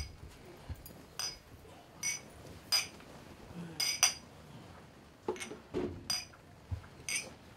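Drinking glasses clinking: a string of about nine separate bright clinks, a few tenths of a second to a second apart.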